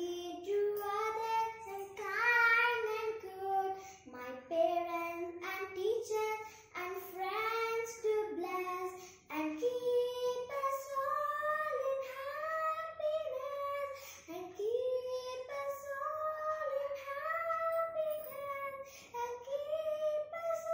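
A young girl singing a prayer song solo, with no accompaniment.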